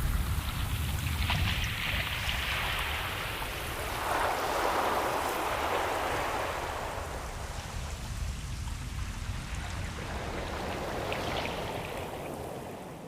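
Ocean surf: waves washing in as slow swells of hiss over a low rumble, three surges in all, the sound dropping away near the end.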